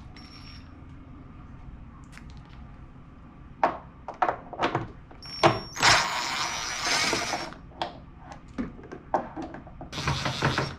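Plastic parts of a drum-type washing machine being worked loose by hand: scattered sharp clicks and knocks, with a longer stretch of scraping and rubbing in the middle and another near the end.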